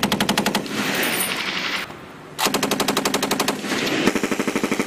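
Belt-fed machine guns firing long, rapid automatic bursts, with a brief lull about two seconds in before the firing resumes.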